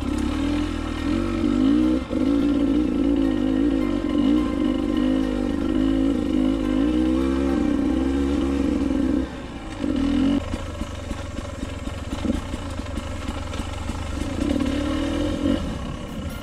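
Dirt bike engine revving up and down under changing throttle while it is ridden, with the throttle easing off briefly about halfway through and then picking up again.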